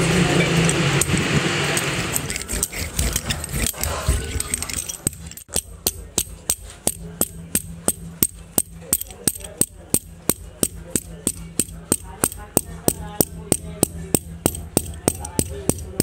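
A small hand tool tapping over the fresh rubber patch on a bulldozer tyre, in a steady run of sharp taps about three a second. It follows a few seconds of louder rough noise at the start.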